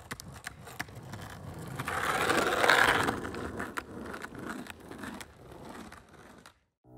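A rolling, scraping noise with scattered sharp clicks. It swells to its loudest about three seconds in, then fades away and cuts off shortly before the end.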